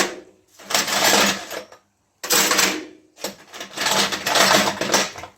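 Pieces of half-inch copper water pipe clattering and rattling together as they are piled into a container, in three bursts of metallic jangling.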